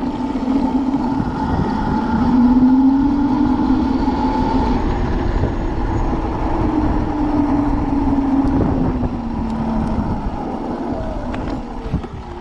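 72-volt QS90 electric motor on a micro mini-bike whining at near top speed (a little over 50 mph) under heavy wind rush, its pitch climbing slowly over the first few seconds and easing back down. Near the end the whine falls as the bike slows.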